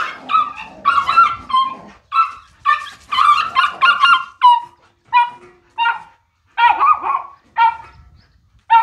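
Small dogs yapping: a fast, overlapping run of high-pitched barks for about the first four seconds, then single barks every half second to a second.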